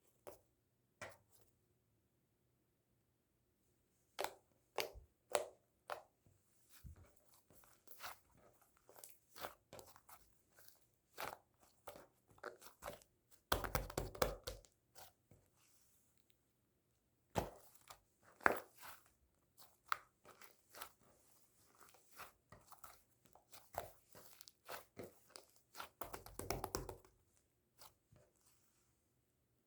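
Scattered crisp crunches and clicks, with two longer runs of crunching about halfway through and near the end.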